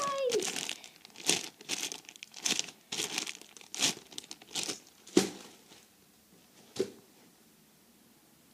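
Crinkly rustling of a squishy toy being squeezed and handled: about nine short rustles in the first five seconds, one more a little later, then the handling stops.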